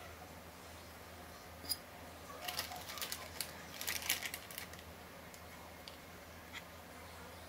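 Metal forks clicking and scraping against ceramic plates as chicken pieces are dredged in flour and lifted between plates: one sharp click, then a quick flurry of light clinks and taps, then a few scattered ticks.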